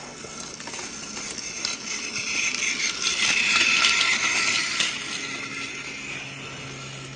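Small mechanism clattering and rattling with quick clicks, swelling to its loudest about halfway through and then fading away.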